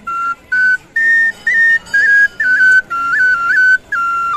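Bamboo flute playing a slow melody in high, separate notes, each held briefly, with quick ornamental flicks of pitch between them.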